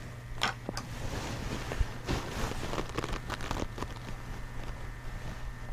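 Paintbrush stroking wet oil paint on canvas: several short, soft scratchy strokes, bunched about two to three and a half seconds in, over a steady low hum.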